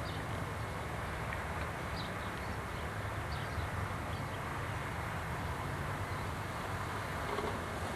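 Steady low hum of a distant motor, with a few faint high chirps.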